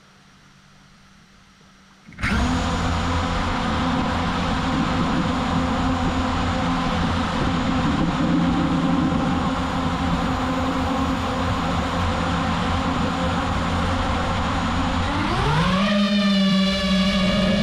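FPV drone's electric motors and propellers starting suddenly and then running with a steady whine and rushing noise; near the end the whine rises sharply in pitch and holds higher as the throttle is pushed up.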